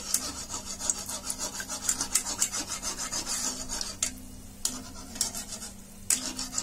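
Wire-mesh skimmer swirling hot oil in a kadai around frying gulab jamun, rasping against the metal pan in a quick rhythm of about three strokes a second. After about four seconds it slows to a few separate scrapes.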